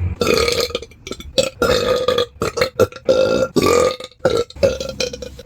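A person burping loudly, a quick string of belches one after another, some short and some drawn out, with brief gaps between them.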